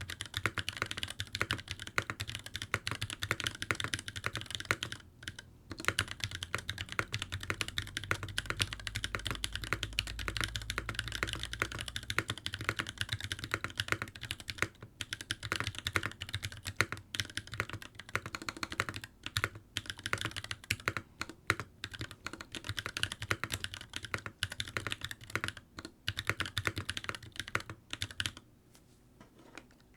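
Steady typing on a mechanical keyboard: Durock POM T1 tactile switches, lubed with Krytox 205g0, in an NK65 Entry Edition case with PBT doubleshot keycaps. The keystrokes are fast and irregular, with a brief pause about five seconds in, and the typing stops shortly before the end.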